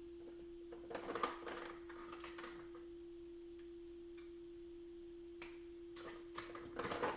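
Scattered light clicks and rattles of small electronic parts, replacement capacitors, being picked out and handled, in two clusters about a second in and again near the end, over a steady faint hum.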